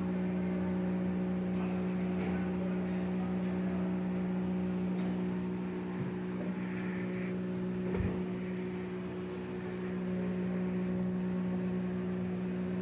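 Battery-powered deep freezer running with a steady, even hum, with a single knock about eight seconds in.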